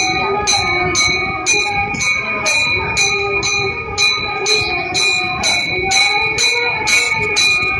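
A temple bell rung in a steady rhythm, about two strokes a second, its ringing held between strokes. Voices chant underneath.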